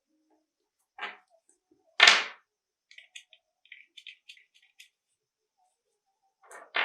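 Hard clacks, the loudest about two seconds in and another near the end, with a run of light, quick clicks between them, from an FN M1900 pistol and its parts being handled.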